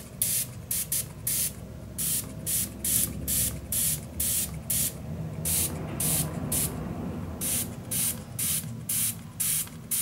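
Small spray bottle misting water onto watercolour paints in a plastic palette, pumped in quick short hissing spritzes, about two a second.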